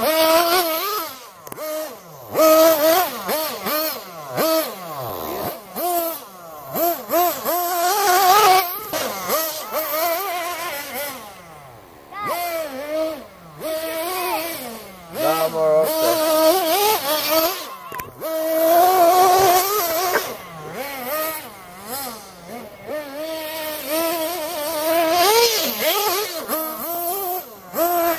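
Small nitro engines of radio-controlled cars buzzing at high pitch, revving up and dropping back over and over as the cars are throttled and driven around, with the loudness rising and falling as they pass.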